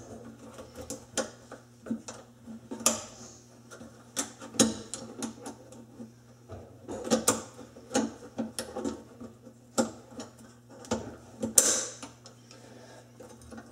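Snap ring of an InSinkErator quick-lock disposal mount being worked by hand into the groove of the metal sink strainer: irregular metallic clicks and taps, with a few louder clicks now and then.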